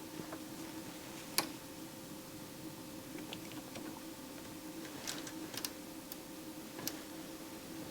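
Scattered light clicks and taps of test probes and small parts being handled on the circuit board, over a faint steady electrical hum. The sharpest click comes about a second and a half in, and a quick cluster follows past the midpoint.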